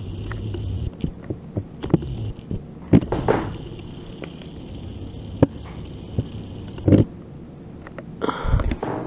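Scattered light clicks and taps from handling an opened iPhone 5 and small tools, over a faint steady high whine that stops about seven seconds in; a louder rustle and knock comes near the end.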